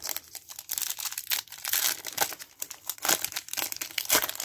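Foil wrapper of a Bowman University Chrome trading card pack crinkling and crackling as it is handled and opened, with a few louder snaps among a dense run of crackles.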